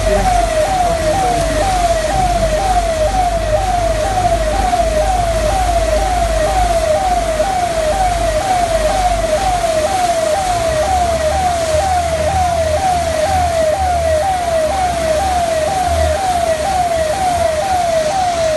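Electronic siren sounding a fast repeating yelp, about two to three sweeps a second, steady throughout, over a low engine rumble and the rush of floodwater.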